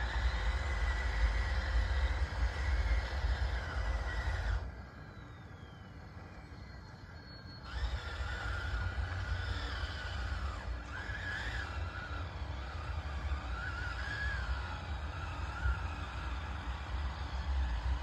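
Radio-controlled DXR2 bulldozer running on gravel: a motor whine with a low rumble that rises and falls in pitch as it works. It cuts out about four and a half seconds in for roughly three seconds, then starts again.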